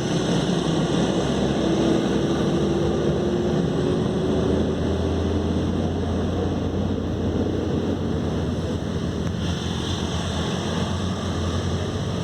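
Steady rumbling noise of a vehicle on the road, with a faint tone that rises slowly in pitch during the first few seconds.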